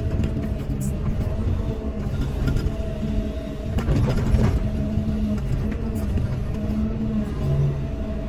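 Caterpillar 320E excavator's diesel engine and hydraulics running steadily under load while the bucket digs into soil, heard from the operator's cab. The noise gets louder and rougher for a moment about four seconds in, as the bucket bites into the ground.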